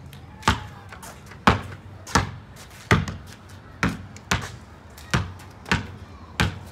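A basketball being dribbled on a concrete driveway: about nine sharp bounces, a little under a second apart and unevenly spaced.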